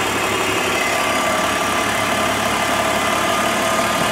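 BMW engine idling steadily while brake cleaner hisses from an aerosol can sprayed into the intake air duct. The cleaner enriches the mixture on purpose, so the lambda sensors read a rich condition.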